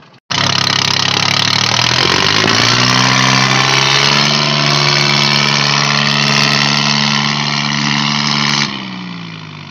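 Small Yanmar 4WD tractor's three-cylinder diesel engine revving hard under load as it drives out of the mud: the revs climb about two seconds in, hold high and steady, then fall away near the end.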